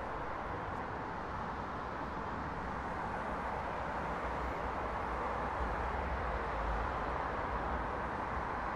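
Steady outdoor street ambience: an even wash of noise over a low traffic rumble that grows a little stronger past the middle.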